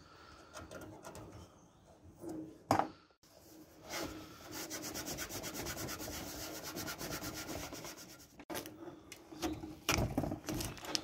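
A tissue rubbed back and forth in quick, even strokes across the top of a computer case for about four seconds, wiping off sticker residue. A single sharp knock comes before it, and handling knocks follow near the end.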